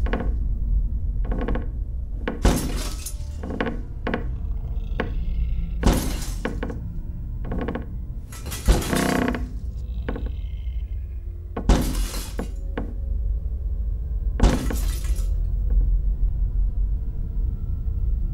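A series of about a dozen short, sharp crashes of something breaking and shattering, spaced irregularly every second or two, over a steady low drone.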